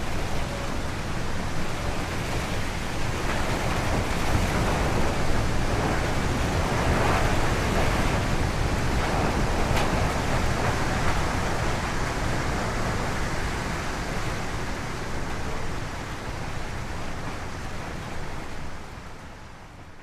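Wind sound effect: a steady rushing noise that swells a little in the middle and fades out near the end.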